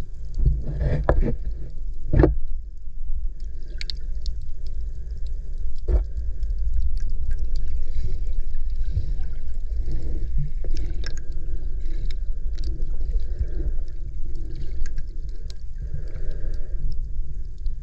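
Sea water heard through an underwater camera: a steady low rumble of moving water, with a shifting murmur and scattered faint clicks and crackles over it.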